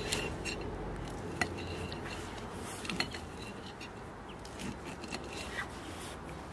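Table knife cutting grilled kebab and flatbread on a plate, with a few short clinks of the blade against the plate.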